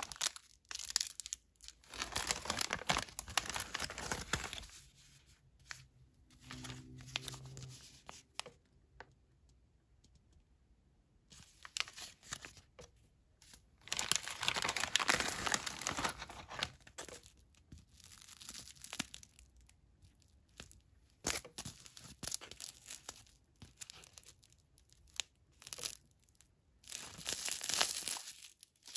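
MRE packaging being handled: a clear plastic bag and paper-foil ration packets crinkling and rustling, with tearing, in irregular bursts separated by short pauses.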